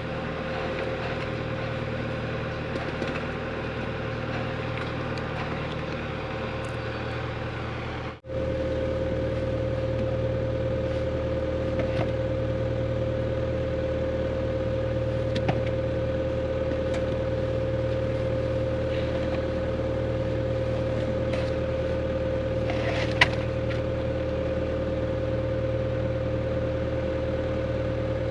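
A 120 excavator's diesel engine running steadily under load, with a steady higher-pitched hum over it. The sound drops out briefly about eight seconds in, then resumes at the same steady level.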